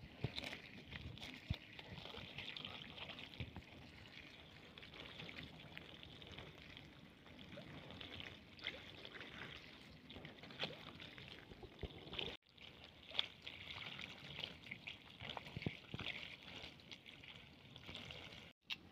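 Water poured in a thin stream over hands rinsing a red onion, trickling and splashing onto grass, with small splashes as the onion is rubbed. The sound drops out briefly about two-thirds of the way through.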